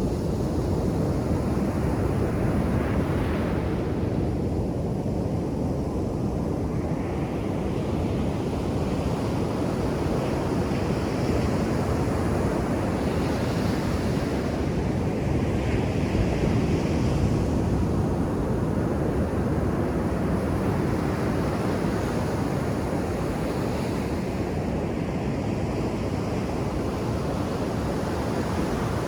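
Ocean surf on a beach: a steady low rumble of breaking waves, with the hiss of water washing up the sand swelling and fading several times.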